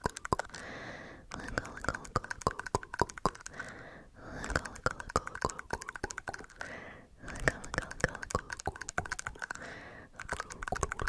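Close-miked ASMR tapping and scratching on the camera: quick, irregular clicks in bursts, broken every few seconds by a short softer rubbing or brushing stretch.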